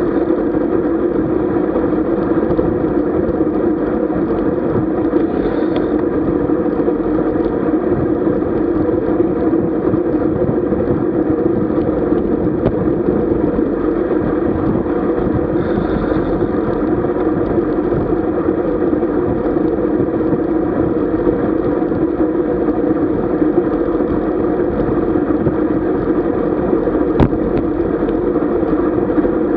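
Steady rumble of travel along a road, a mix of wind and road noise that runs on evenly without a break, with one faint click near the end.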